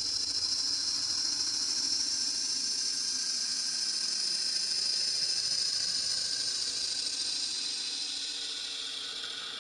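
Electronic music: a sustained synthesized hiss, like filtered noise, that slowly sinks in pitch and fades near the end.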